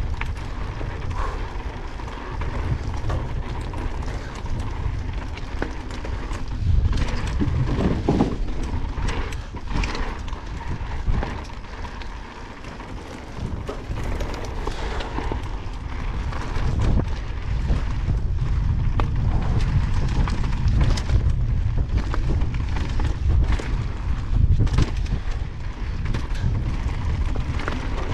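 Evil Wreckoning mountain bike running fast down a rocky trail: tyres crunching over loose stones and frequent sharp clacks and rattles as the bike hits rocks. Wind buffets the microphone under a steady low rumble.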